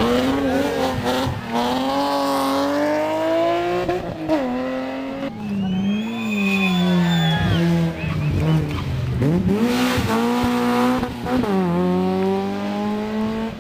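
Rally car engines running hard as the cars pass, the pitch climbing and then dropping sharply several times with gear changes and lifts off the throttle. A brief high squeal about six seconds in.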